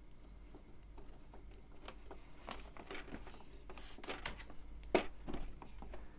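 Faint clicks and scrapes of an Epson inkjet printer's plastic housing and a metal screwdriver as the printer is handled and shifted. The clicks come more often from about two seconds in, with one sharper click near the five-second mark.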